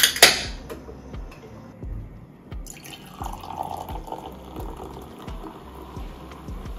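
An aluminium can of hard cider is cracked open with two sharp snaps of its pull tab. From about three seconds in, the cider pours from the can into a glass and foams.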